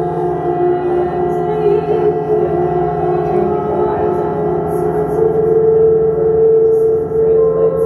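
Improvised experimental music: a sustained drone of several steady ringing tones that waver slightly, with faint ticks high above.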